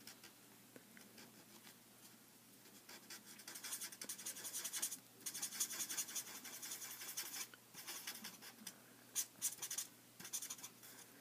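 Spectrum Noir alcohol marker nib scratching across paper in small circles as skin is coloured in. The scratching starts a couple of seconds in, with a short break a little past halfway.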